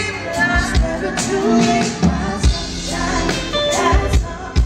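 Live R&B band playing, with a woman singing lead and a kick drum thumping out the beat.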